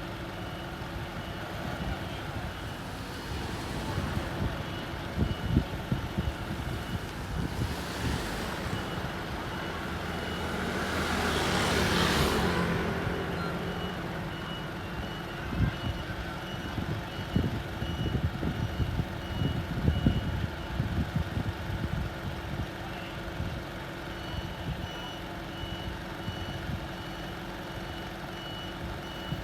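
Fire engine's reversing alarm beeping in runs with short pauses, over the truck's idling engine. A passing vehicle swells and fades about twelve seconds in.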